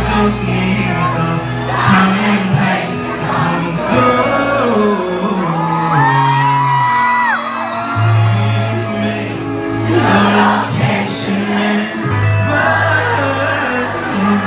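Live music with a deep bass line playing loud through a concert hall's PA, with singing over it and the crowd whooping and shouting.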